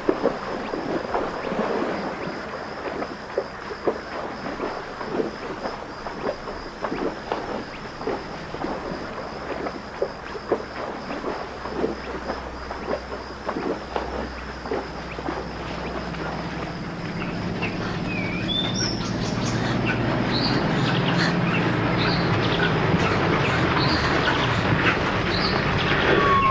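Outdoor ambience: insects chirping steadily, with scattered crackling clicks. About two-thirds of the way through, a low rumble builds and birds begin chirping over it.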